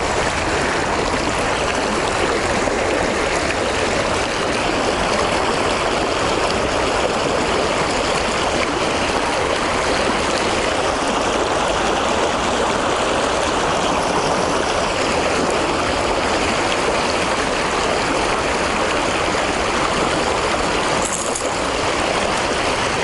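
Steady rush of river water flowing through the tailwater of a lock and dam, heard close to the water.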